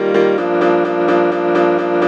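Background music: a keyboard or piano-like instrument playing repeated chords at a steady pulse, changing chord about half a second in.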